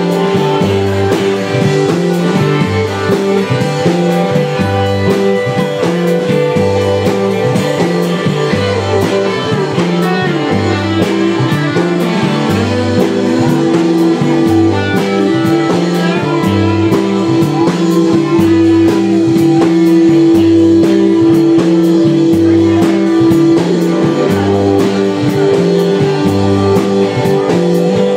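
Live blues-rock band playing: electric guitars and bass guitar over a steady beat, with a long held note in the middle.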